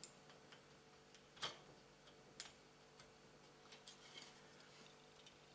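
A few faint, sharp clicks of hard plastic as fingers handle small parts on a grey plastic model-kit sprue. The clearest click comes about one and a half seconds in, with smaller ticks later, over a quiet room.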